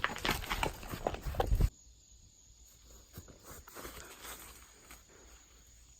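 Hurried rustling and clicking, a quick run of small knocks for about a second and a half that cuts off suddenly, then faint scattered ticks over a quiet background.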